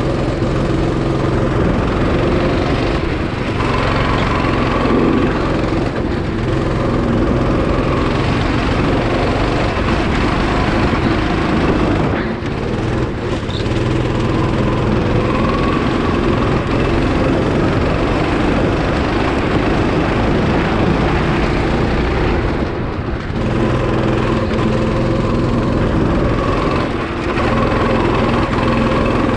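Go-kart engine running hard under throttle, heard from on board the kart. Its note dips briefly a few times, where the driver eases off for corners.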